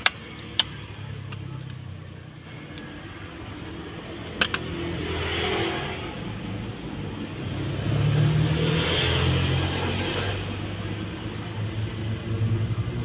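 Rumble of motor vehicles passing by, swelling about a third of the way in and louder again just past the middle, with a few sharp clicks before that.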